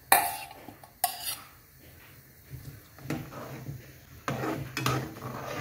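A couple of sharp metal clinks as rice is tipped from a steel bowl into a steel kadai, then a steel spoon stirring rice in liquid in the pan, scraping and knocking against the metal in the last few seconds.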